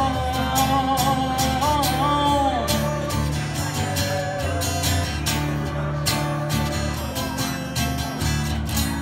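Acoustic guitar strumming with a pedal steel guitar, an instrumental passage of a country song. The steel's held melody slides and bends in pitch and fades out about three seconds in, leaving the strummed guitar.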